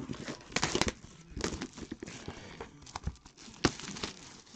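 Plastic packaging crinkling and tearing in irregular crackles and clicks as a sealed trading card package is unwrapped by hand.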